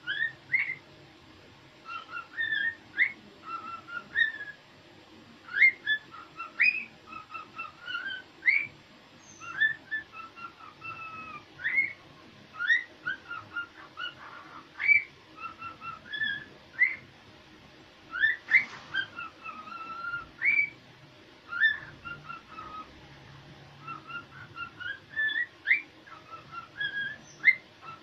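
Cockatiel singing: a long run of short whistled notes, many of them quick upward sweeps, in phrases broken by brief pauses.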